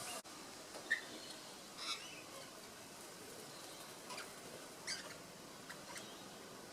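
Scattered short, high chirps and squawks from wild parrots over a faint steady outdoor background, the sharpest call about a second in and a few more around two and five seconds in.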